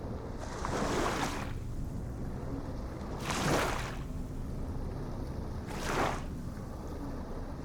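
Ocean waves washing in, three surges about two and a half seconds apart, over a steady low rumble.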